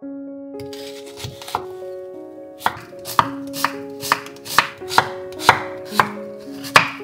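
Kitchen knife chopping an onion on a wooden cutting board: a few light cuts, then a steady run of sharp chops at about two a second. Soft background music with held notes underneath.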